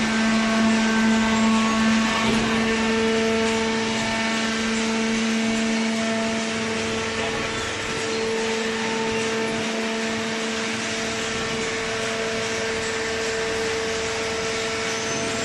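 Hydraulic baling press running: a steady machine hum with a held pitched whine over a wash of mechanical noise.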